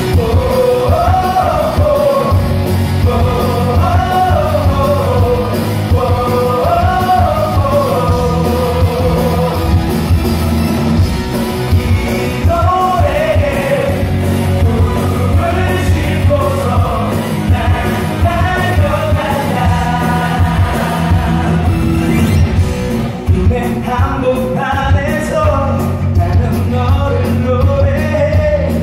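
Live rock band playing a song, with electric guitar, bass, drum kit and keytar under a sung lead melody that rises and falls in phrases of a couple of seconds.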